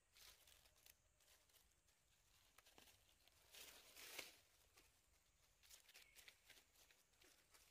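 Near silence with faint scattered rustles and clicks, loudest for about a second just before halfway through: dry leaf litter stirred by a macaque shifting its seat and hands.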